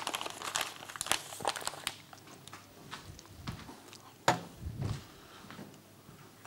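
Paper flour bag crinkling in quick crackles as its top is folded shut, then a single sharp knock about four seconds in, followed by faint small ticks.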